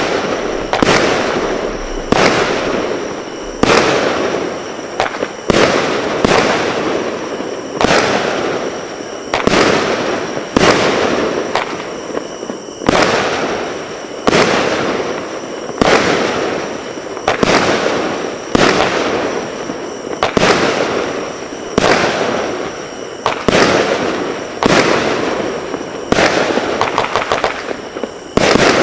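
A 25-shot consumer firework cake firing its shots one after another, about one every second or so, each a sharp bang that fades away. Near the end several shots come in quick succession, then a larger finale burst.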